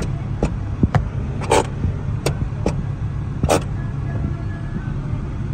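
Honda B18C 1.8-litre four-cylinder VTEC engine idling steadily, heard from inside the cabin. About half a dozen short sharp clicks or knocks sound over it in the first few seconds.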